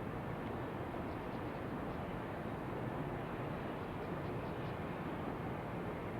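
Steady outdoor wind ambience, an even rushing noise, with a few faint high bird chirps about a second in and again around four seconds in.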